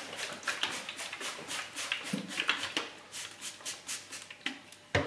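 Trigger spray bottle squirting water onto a drill's foam sanding pad in many quick squirts, several a second, wetting the pad for wet sanding. A louder knock comes near the end.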